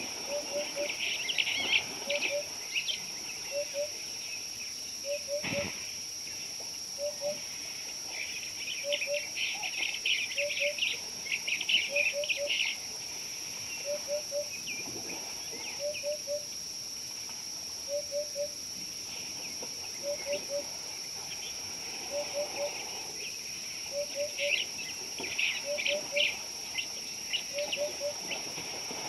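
Birds calling in the bush: one bird repeats a short two- or three-note call about once a second, while others chatter in loud bursts, busiest about a second in, again from around eight to thirteen seconds, and near the end. A steady high-pitched drone runs underneath.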